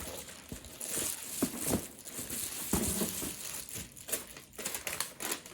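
Rustling and crinkling of a cut template being handled and laid down on carpet material, with scattered light taps and clicks.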